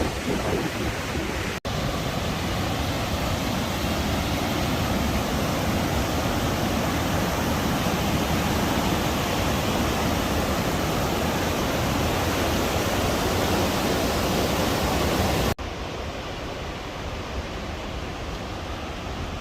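Steady rush of falling water from a large waterfall, cutting off abruptly twice and coming back a little quieter near the end.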